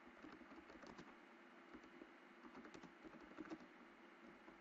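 Faint typing on a computer keyboard: a run of irregular, quick keystroke clicks as a short phrase is typed.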